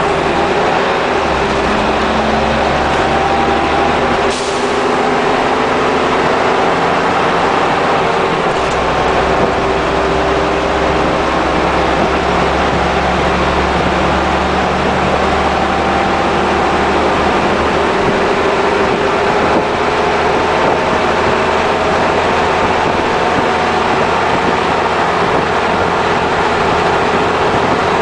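ECW-bodied Leyland Olympian double-decker bus heard from inside the lower deck on the move. The engine runs under load with road noise, its pitch rising and falling several times. A short hiss comes about four seconds in.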